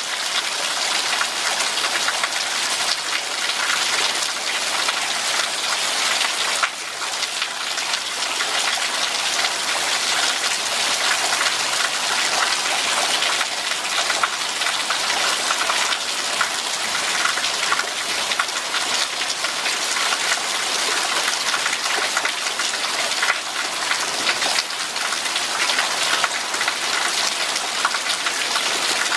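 Steady rain falling: a dense, even patter of many drops.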